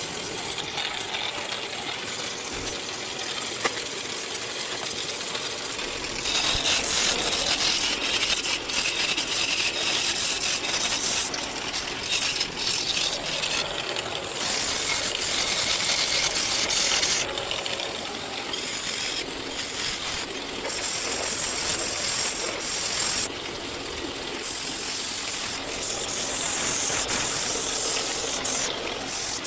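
Woodworking power tool cutting or shaping wood: a steady machine noise with louder, high-pitched stretches of cutting that start and stop every few seconds.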